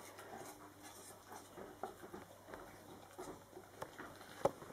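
Newfoundland dog chewing a piece of apple: faint, irregular crunching and wet mouth clicks, with one sharper click near the end.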